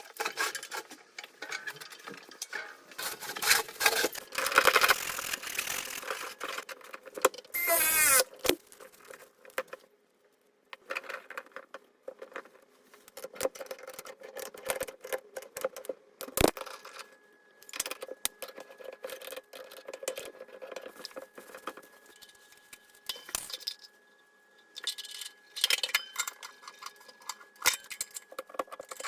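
Metal parts and tools clinking, rattling and knocking in irregular bursts while they are handled, with a brief rising sweep about eight seconds in and a faint steady high tone through the second half.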